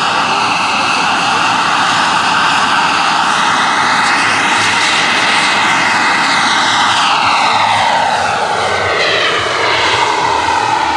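Scale RC model Eurocopter EC 135 helicopter with a model turbine engine, running in flight: a loud whine over a steady rush of rotor noise. Its pitch climbs about four seconds in, then slides down through the second half.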